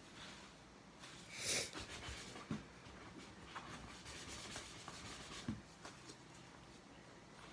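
Faint rubbing and handling of a sponge with Comet cleanser, with one louder, short hiss about a second and a half in and two soft knocks later.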